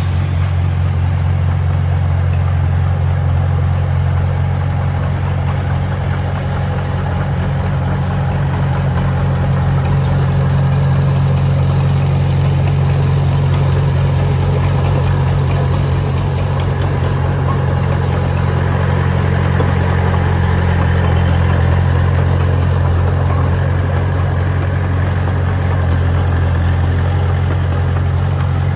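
Heavy construction machine's diesel engine running steadily at an even pitch, with a strong low hum.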